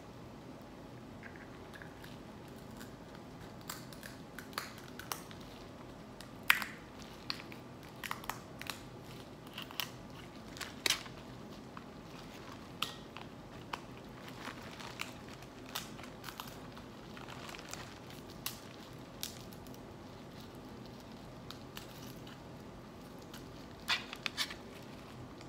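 Boiled crab and crawfish shells being cracked and peeled by hand: irregular sharp cracks and clicks, the loudest about six and a half and eleven seconds in, with a quick cluster near the end, over a faint steady hum.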